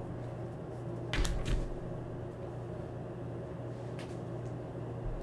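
Quiet room tone: a steady low electrical hum, with a soft knock about a second in and a faint click near four seconds.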